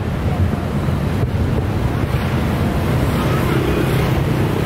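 Wind buffeting the microphone over the steady murmur of a dense crowd of spectators, with no firework bursts standing out.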